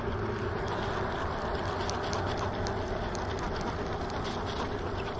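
Baitcasting reel being cranked steadily to retrieve the line, a faint mechanical whir with light scattered clicks over a steady background hiss.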